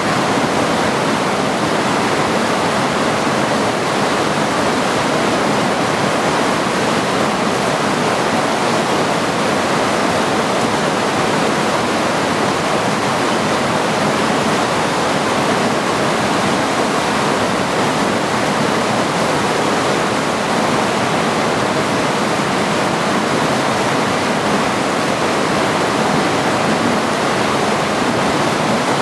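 Mountain creek rushing steadily over rocks.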